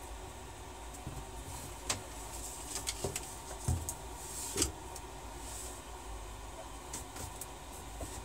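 Handling noises: scattered light clicks, small knocks and rustles as a USB cable is plugged into the side of a laptop and a mini quadcopter is set on the desk, with a soft knock about three and a half seconds in. Light keyboard taps near the end, over a faint steady hum.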